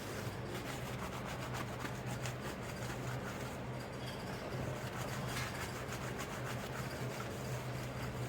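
Dishes being washed by hand: a continuous rubbing and scrubbing with many small scrapes and light knocks, over a steady low hum.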